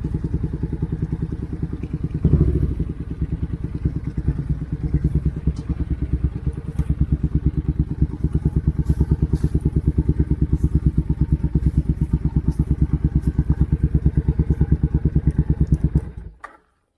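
Motorcycle engine with a loud exhaust idling in a steady, even beat, with a brief burst of throttle about two seconds in. It stops near the end.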